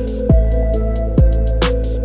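Electronic background music with a steady beat: deep kick drums with a falling pitch, crisp hi-hat ticks and a held synth tone.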